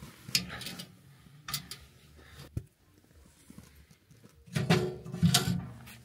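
Small sheet-steel camping wood stove being handled: a few clicks from the door latch, then louder knocks and clunks about two-thirds of the way in as the door is opened.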